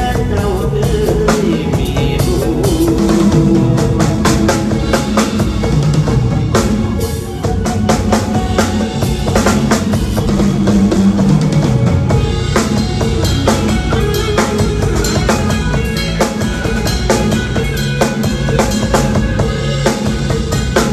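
Live band music with the drum kit to the fore: kick and snare hits on a steady beat over bass and keyboard.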